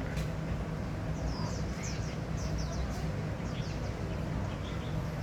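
Small birds chirping: a run of short, quick, high chirps over a steady low background rumble.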